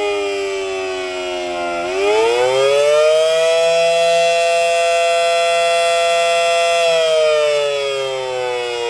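Federal Signal Model 7AT outdoor warning siren sounding a rising-and-falling Attack signal. Its pitch winds down, climbs back up about two seconds in, holds its top note for about three seconds, then falls again near the end.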